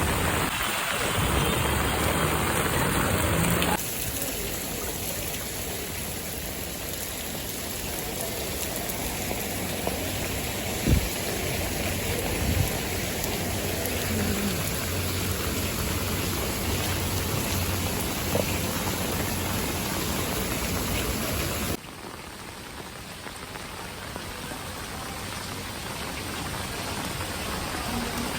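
Heavy rain falling, a steady hiss of rain on the ground and surfaces. The sound changes level abruptly twice, about four seconds in and again past twenty seconds. There are a couple of brief knocks in the middle.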